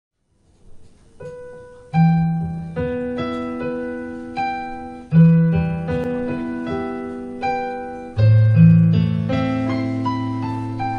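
Solo piano playing a slow introduction: a few soft notes, then full chords with deep bass notes struck about every three seconds and left to ring and fade between them.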